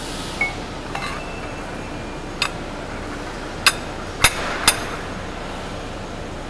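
Metal blade and spacer rings on a slitting-machine arbor shaft clinking against each other and the shaft as they are fitted by hand: about six sharp metallic clinks with a short ring, the three loudest in the second half, over steady background noise.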